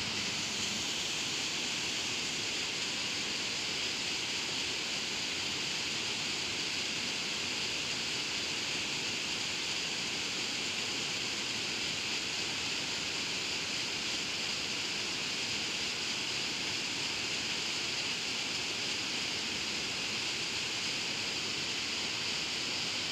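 Water pouring over a concrete dam spillway, a steady rushing noise.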